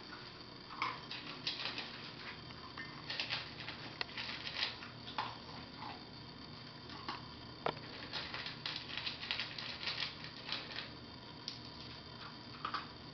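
Puppy eating dry kibble from a stainless steel bowl: irregular runs of crunching and chewing, with one sharper click a little past the middle.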